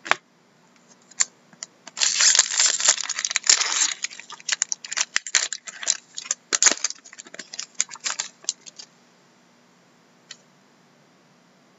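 Foil hockey-card pack wrapper crinkling and tearing as it is opened, a dense crinkle about two seconds in, followed by scattered crackles and clicks as the wrapper and cards are handled, dying away a few seconds before the end.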